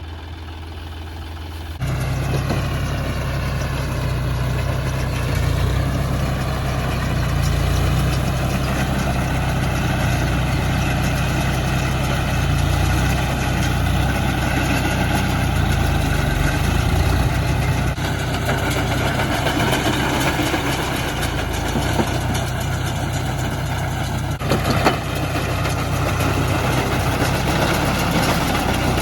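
John Deere 5105 tractor's three-cylinder diesel engine running steadily with a whine above it, getting louder about two seconds in, as it drives a round baler. A brief clatter stands out about 25 seconds in.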